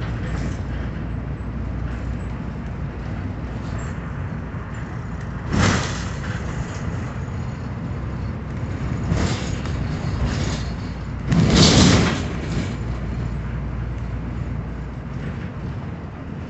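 Steady road and engine noise heard from inside a moving car, with three brief louder rushes, the loudest about twelve seconds in.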